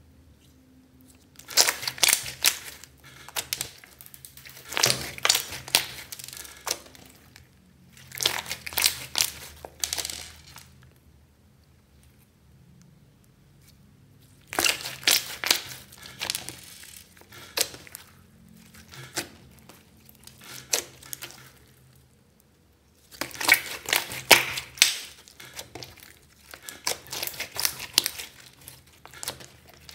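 Hands kneading and squeezing a large glossy clear slime mixed with glitter and small beads, making sticky crackling and squishing. It comes in several spells of a second or two with short pauses between, the loudest a little past two-thirds of the way in.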